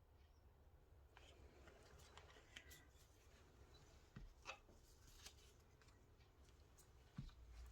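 Near silence with faint scattered clicks and light rubbing from paint cups and bottles being handled, and a soft thump near the end.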